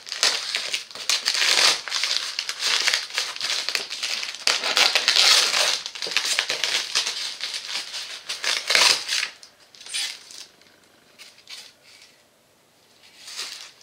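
Cardboard parcel being torn open by hand, packing tape ripping and the packaging rustling and crinkling in rapid bursts; the noise dies away about ten seconds in.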